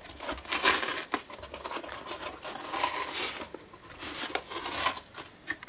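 Cardboard shipping box being pulled open by hand: cardboard and packing tape tearing and crinkling in irregular bursts, with a short lull a little past the middle.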